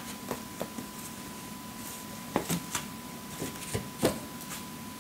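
Paperback manga volumes being handled: a series of light taps and knocks as books are taken from a cardboard box and set down on a stack on a tile floor, the loudest about four seconds in.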